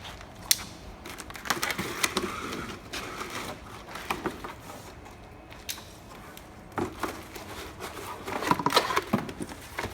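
Packaging and boxed parts being handled: rustling with scattered clicks and light knocks, busiest near the end.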